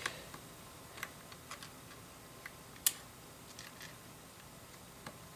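Scattered light clicks and taps of small plastic LEGO pieces being handled, pressed together and picked from a loose pile on a table, with one sharper click about three seconds in.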